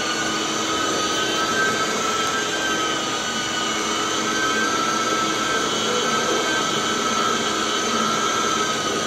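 Rotovac DHX rotary carpet extraction tool running over carpet under vacuum: a steady high whine of suction over a rushing hiss of air.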